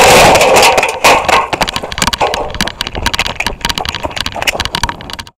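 Glock 17T training pistols firing Simunition FX marking cartridges: a fast, irregular string of sharp cracks, heaviest and loudest in the first second.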